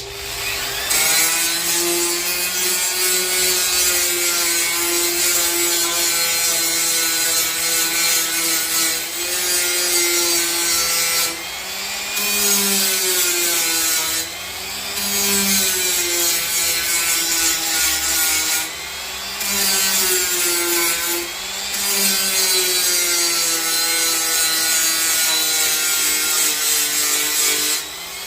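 Milwaukee M12 cordless die grinder with a burr cutting into black walnut: a steady motor whine over a gritty rasp, the pitch sagging and recovering as the burr bites. The cut eases off briefly several times.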